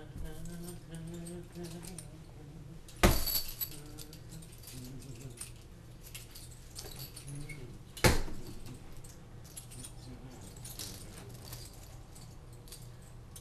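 Metal chain rattling and jingling, with two sharp metallic clanks about three and eight seconds in.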